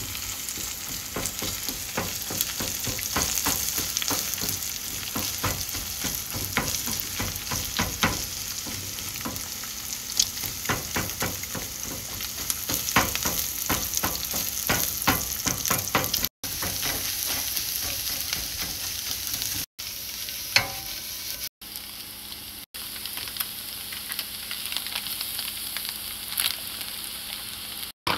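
Eggs frying in oil in a nonstick pan with a steady sizzle, while a spatula breaks them up and stirs them, making many quick taps and scrapes against the pan. The sizzle cuts out briefly a few times.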